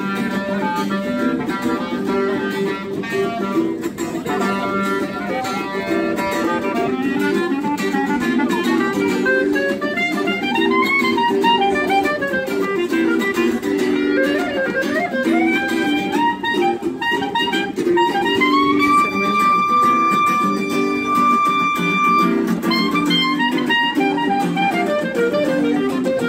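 Acoustic guitar strumming chords while a clarinet plays a sliding melody over it, with one long high note held for a few seconds about three-quarters of the way through.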